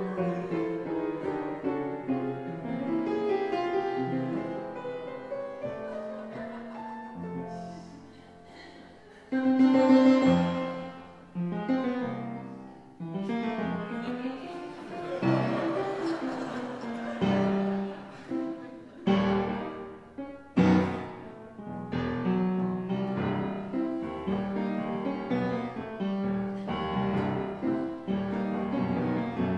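Live ragtime-style silent-film accompaniment led by piano. It dips quieter about a third of the way in, comes back with a loud accent, and has a few sharp stabs past the middle.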